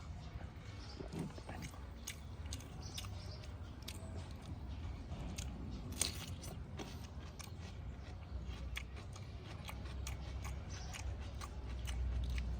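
A person chewing and biting food close to the microphone, with many short crunchy clicks over a steady low rumble.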